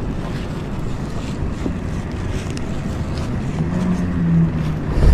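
Wind buffeting the microphone, a steady low rumble, with a brief low hum around four seconds in and a dull knock of handling just before the end.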